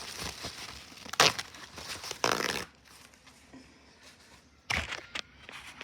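Paper towel being folded and handled, rustling and crinkling in a few short bursts, with a quieter pause in the middle.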